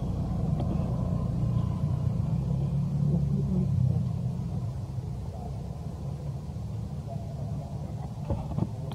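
Low, steady rumble of a motor vehicle, loudest in the first few seconds and then easing off, with a couple of faint clicks near the end.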